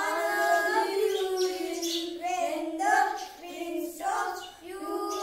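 Children singing a song, phrase after phrase with short breaks between lines.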